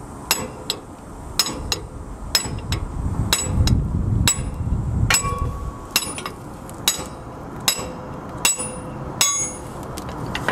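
Steel hammer striking the brake camshaft of a SAF trailer-axle drum brake, more than a dozen sharp ringing metal blows a little more than one a second, driving the stuck shaft out of its bushing.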